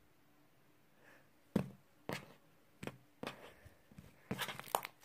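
Hands pressing and poking into slime, making short sticky pops and squelches: a few scattered ones from about a second and a half in, then a quick cluster near the end.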